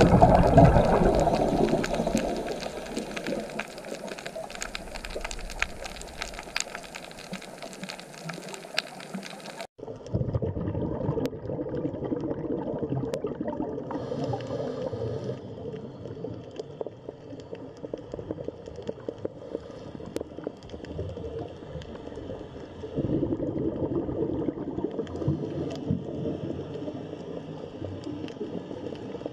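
Underwater ambience picked up by a camera in a housing: muffled water noise and bubbling, loudest at the start and fading, with a crackle of fine ticks through the first part. About ten seconds in it switches abruptly to a duller, lower water sound that swells again near the end.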